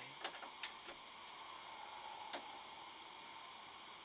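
A few light clicks and taps from a plug and cable being handled at the side of a TV, most in the first second and one more a little past the middle, over a steady faint hiss.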